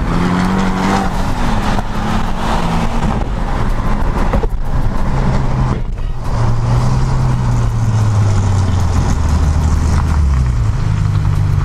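Car engines running and accelerating in traffic, heard from inside a moving car; the low engine note steps up and down in pitch, with brief drops about four and six seconds in.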